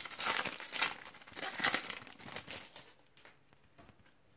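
Foil wrapper of a Panini trading-card packet crinkling as it is torn open by hand. It stops about three seconds in.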